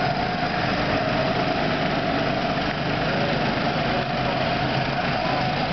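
Go-kart's small gasoline engine running steadily as the kart drives along the track.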